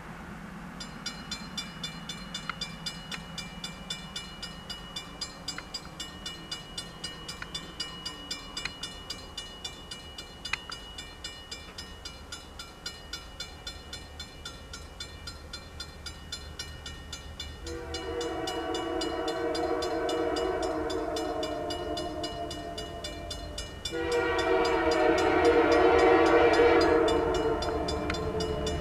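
Level-crossing warning bell starts ringing about a second in, with a few quick strikes a second. About two thirds of the way through, the air horn of an approaching EMD GP20C-ECO diesel locomotive sounds a long blast, then a second, louder blast, in the crossing warning pattern; the horn is the loudest sound.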